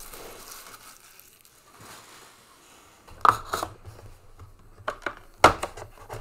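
Cardboard hobby box of Panini Prizm card packs being handled and opened: faint rustling, then a few sharp knocks and crinkles from about three seconds in.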